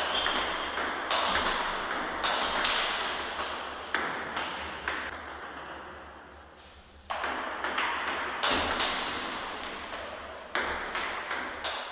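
Table-tennis rally: the ball clicking off rubber paddles and bouncing on a Butterfly Octet table, each hit ringing on in the room. The hits stop for about two seconds around the middle, then a new rally starts.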